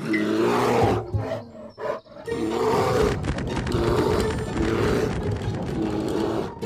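Cartoon rhinoceros beetle character giving a growling roar: a short one, a break of about a second, then a long wavering one.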